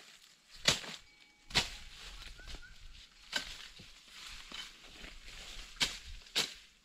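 Irregular sharp woody knocks, five of them, the loudest about half a second and a second and a half in and two close together near the end, with rustling of branches and leaves between them.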